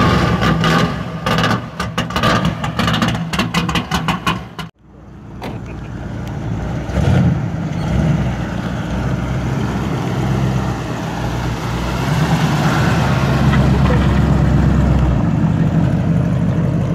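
Early-1970s Ford Mustang's 351 Windsor V8 running at low revs as the car rolls slowly past, a deep exhaust rumble that fades in and grows steadily louder, with a brief swell about seven seconds in. Before it, a few seconds of fast, rhythmic intro sound that cuts off abruptly.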